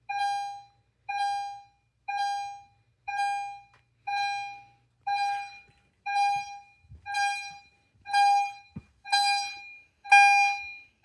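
EST Genesis fire alarm chimes sounding a steady repeating chime, about one a second, each a short ringing tone that fades away. The chimes grow louder toward the end, and a few soft knocks come partway through.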